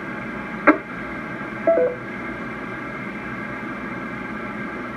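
The KX4I 10-meter FM repeater's signal through a Kenwood transceiver's speaker. The repeater carrier hangs on with a steady hiss and hum, a short click comes under a second in, and a two-note falling beep follows near two seconds, the repeater's courtesy tone after the other station unkeys.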